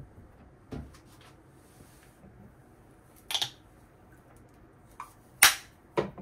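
Several sharp plastic clicks and knocks from handling a bathroom mirror cabinet and a bottle with a flip-top cap: the cabinet opening, the cap snapping open and shut, and the bottle set back on the shelf. The loudest snap comes about five and a half seconds in.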